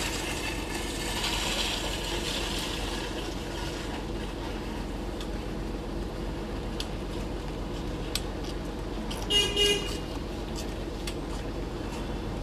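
Steady street and traffic noise with a few sharp clicks, and a vehicle horn giving one short toot about nine and a half seconds in.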